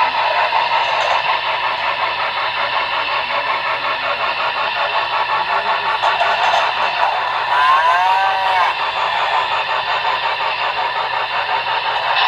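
Model freight train running along a layout, pulled by a two-tone grey Union Pacific 4-8-4 steam locomotive model: a steady rolling rattle of the train on the track with a fast even ticking rhythm. A brief warbling pitched sound cuts in about eight seconds in.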